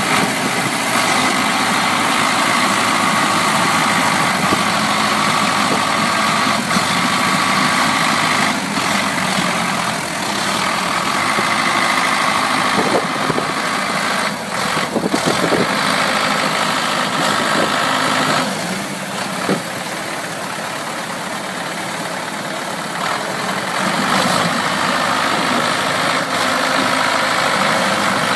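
Diesel engines of a wheeled farm tractor bogged in mud and a crawler dozer hitched to tow it, running steadily. The sound drops for several seconds about two-thirds of the way through, then comes back up.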